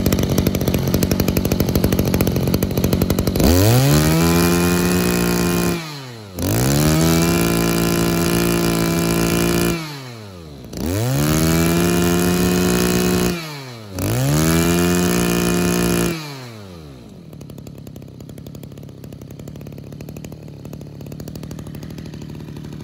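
Mitsubishi TL26 brush cutter's 26 cc two-stroke engine idling roughly, then revved up to high speed four times, each rev held for two to three seconds before dropping back. It then settles into a steady idle.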